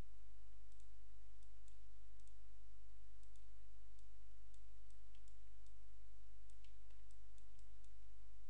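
Steady low electrical hum with faint, irregular high-pitched clicks, a few each second.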